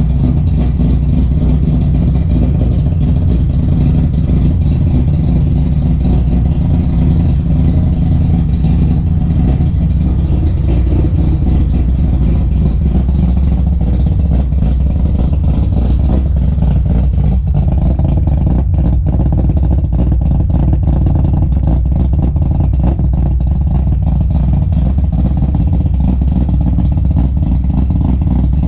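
Three-rotor Mazda 20B rotary engine idling steadily while it warms up after a cold start.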